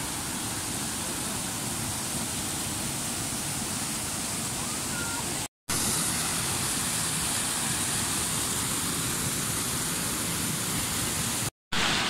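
Mountain stream rushing white over boulders in small cascades, a steady, even rush of water that breaks off for a split second twice.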